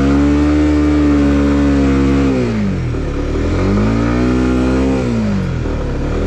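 Motorcycle engine revved hard twice, its pitch climbing, holding and then dropping away each time, as the bike labours through mud.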